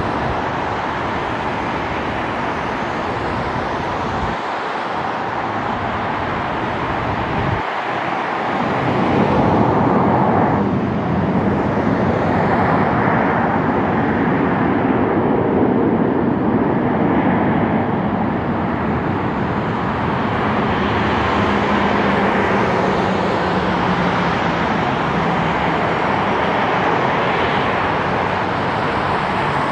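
Jet engines of a Boeing 737 airliner running as it rolls out after landing and slows to taxi: a steady rushing noise that grows a little louder about nine seconds in.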